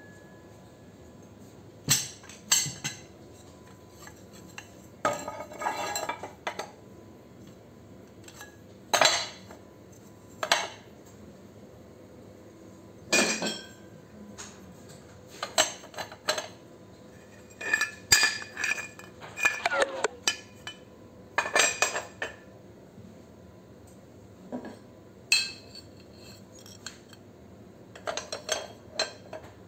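Scrap electric motor stators being set down and stacked on a metal platform scale: sharp metal clanks and clinks at irregular intervals, some ringing briefly, with a busier run of rattling clatter about two-thirds of the way in.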